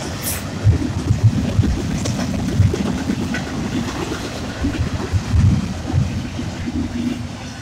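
Union Pacific freight train's cars rolling past: a steady low rumble with irregular clunks and clatter from the wheels and couplers. A short hiss comes near the start.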